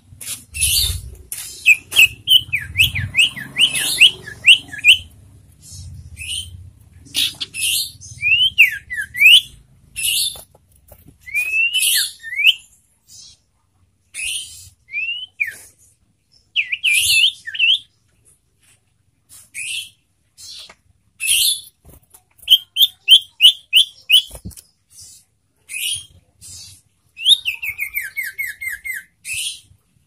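Sirtu (pied triller) singing: groups of short, hooked whistled notes, some in quick runs of five or six, mixed with sharp high chirps, and a falling run of notes near the end.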